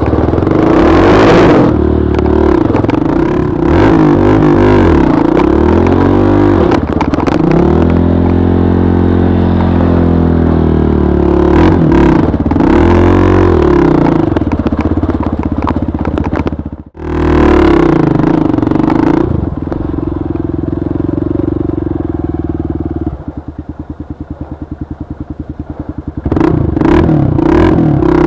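Trail dirt bike's engine revving up and down as it is ridden. It cuts out for a moment about two-thirds of the way in and picks up again. Near the end it drops to a quieter, evenly pulsing idle for a few seconds before revving again.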